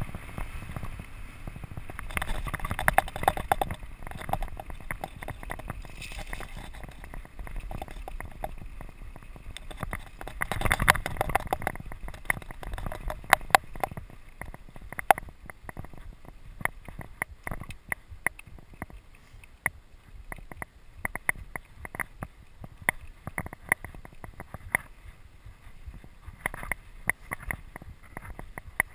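Rigid singlespeed 29er mountain bike descending fast over bumpy dirt and grass: tyre rumble with many sharp rattles and knocks as the unsuspended bike hits bumps, and wind buffeting the microphone. The rumble surges louder twice, about 3 and 11 seconds in.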